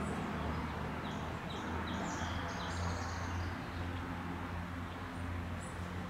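Woodpecker nestlings calling from their tree-cavity nest: a quick run of short, high chirps from about one to three and a half seconds in, with a couple of faint high peeps near the end, over a steady low hum.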